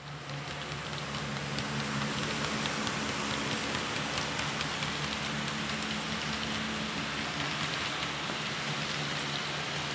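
HO scale model freight train running past: a steady rolling hiss of small metal wheels on the rails, with faint ticking from the rail joints over a low steady hum. It builds up in about the first second, then holds level.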